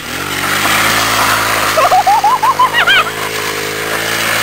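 Honda Monkey mini bike's single-cylinder engine running close by at steady revs, with a short wavering high squeal about halfway through.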